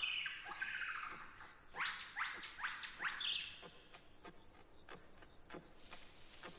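High-pitched animal-like squeaks and chirps: a falling chirp, then four quick sharply rising squeaks and a short held note, followed by a run of faint clicks.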